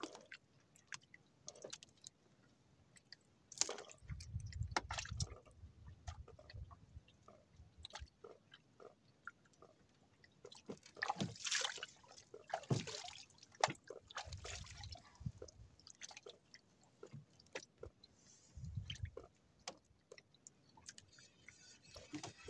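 A handline fisherman handling his line and hooks in a wooden outrigger boat: scattered small clicks, knocks and rustles, with light water splashes. A few low rumbles come and go.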